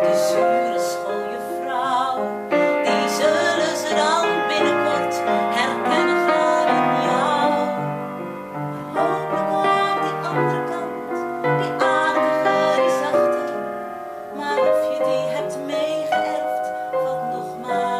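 Live upright piano accompaniment with a saxophone playing a melody, and a woman's voice singing a slow song.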